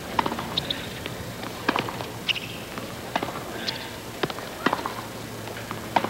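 Tennis balls knocking irregularly on a hard court, bouncing and being struck, with a few short high squeaks over a low steady background.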